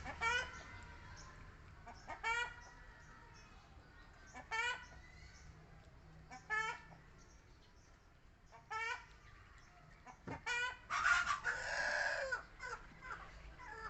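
An animal giving short, high pitched calls about every two seconds, with a longer, louder call near the end.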